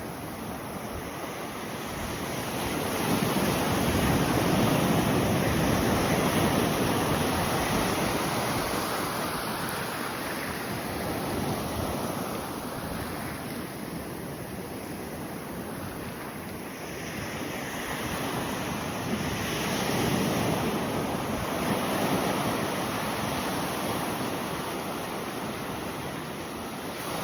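Ocean surf breaking and washing up on a sandy beach: a steady rushing that swells up twice, a few seconds in and again about twenty seconds in, as waves come in.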